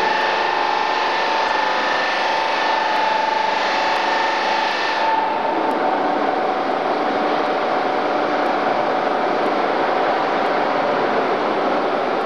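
Robotic polishing machine running its polishing wheel against a metal chair frame: a steady machine whine over a hissing grind. About five seconds in the hiss drops away, leaving the steady whine.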